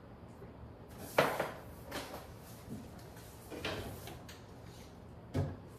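Kitchen fridge-freezer being opened and searched off-camera: a sharp knock about a second in, a few softer clunks, and a low thud near the end.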